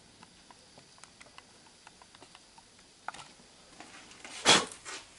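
Faint scattered crackling and ticking from pasta burning in the oxygen jet of a mason-jar peroxide-and-yeast 'rocket engine', then a brief loud rush of noise about four and a half seconds in.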